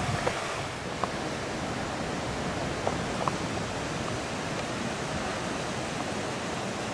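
Steady rushing noise of waterfalls cascading into rock pools, with a few faint ticks.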